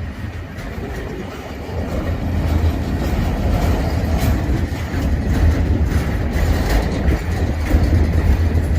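Freight train rolling past, a steady heavy rumble with the irregular clicking of wheels over the rail joints.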